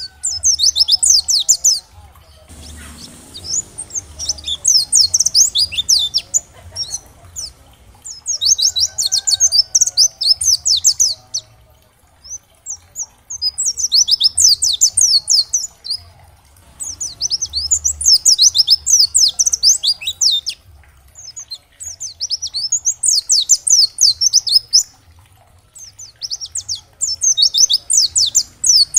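Pleci (white-eye) singing: bursts of rapid, high twittering notes, each phrase two to three seconds long, repeated about seven times with short pauses between.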